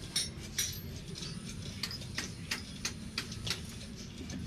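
Ratchet socket wrench clicking as it is worked back and forth on the bolts of a truck's front wheel spindle: short, sharp metallic clicks, two or three a second, over a steady low hum.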